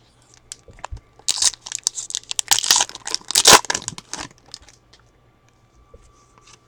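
Crinkly wrapper of a trading-card pack being torn open and crumpled by hand, a dense crackling run of about three seconds, with light card-handling noise either side.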